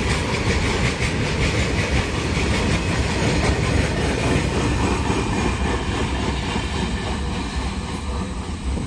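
Loaded open freight wagons of a coal train rolling past close by, the wheels clattering steadily over the rail joints. The tail of the train passes and the rumble begins to fade away near the end.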